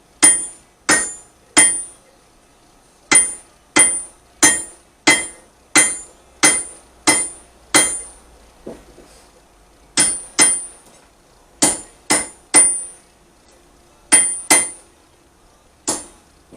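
Hammer striking hot raw iron on an anvil in runs of ringing blows, about one and a half a second, broken by short pauses.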